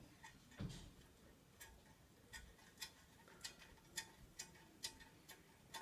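Faint, sharp metal clicks at a steady pace of about two a second, with a dull knock near the start, as a bolt and nut are fitted to a scooter's rear brake.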